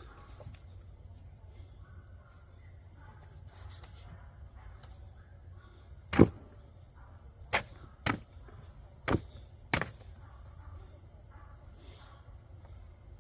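Five sharp knocks a second or so apart, the first the loudest, over a quiet background.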